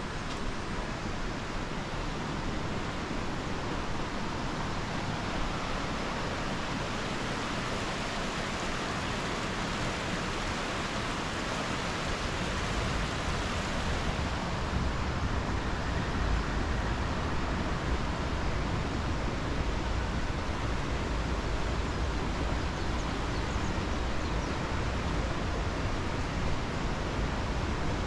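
Steady rush of water from a waterfall, an even noise without pauses, with a deeper rumble growing louder about halfway through.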